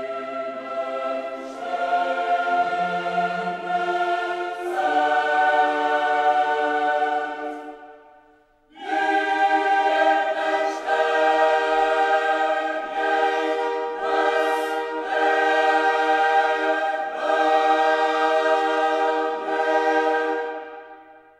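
Choral music: voices singing long held chords, breaking off briefly about eight seconds in, then coming back and fading out at the end.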